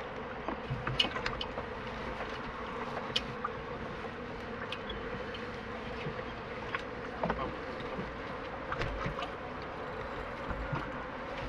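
A steady buzzing hum, with scattered light clicks and knocks over it.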